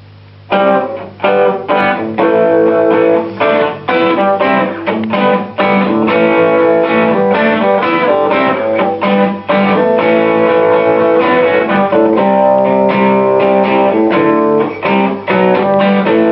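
Electric guitar played through an amp: short picked chord stabs starting about half a second in, then a run of ringing chords and single notes.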